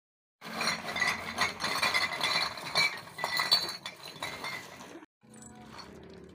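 Empty glass and plastic bottles clattering and clinking as a sack of them is tipped out onto concrete ground. The clatter stops about five seconds in, leaving faint outdoor background.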